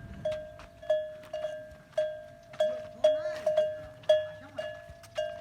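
Bells on Kharai camels ringing in irregular strikes, about two a second, some in quick doubles. Each strike rings at the same pitch and fades quickly.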